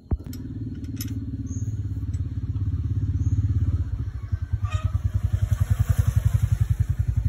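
Mitsubishi car engine starting up and settling into a run, with an even, rapid pulse in its sound; it dips briefly about four seconds in, then runs on with stronger pulses during the tune-up.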